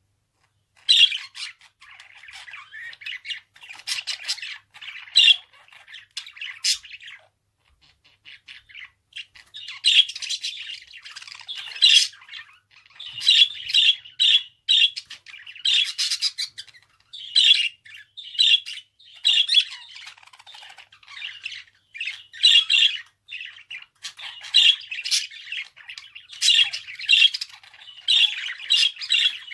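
Budgerigar chattering and warbling: a rapid string of squawks, clicks and chirps, pausing briefly a quarter of the way through, then continuing almost without a break.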